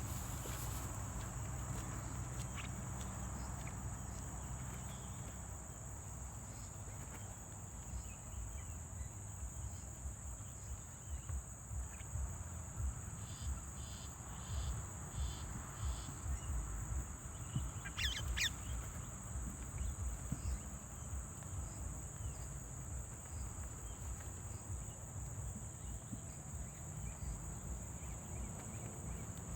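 Steady high-pitched insect drone, with a series of short bird chirps around the middle and one brief bird call a little after, over low rumbling wind on the microphone.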